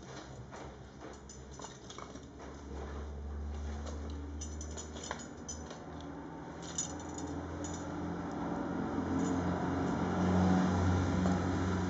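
Firewood crackling and popping in an open three-sided fireplace as the fire gets going, with a low rumble that grows louder over the second half.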